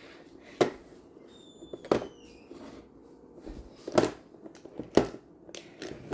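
Plastic magnetic building tiles clicking and knocking together as they are handled and set in place: six or so sharp, separate clicks spread irregularly through the few seconds.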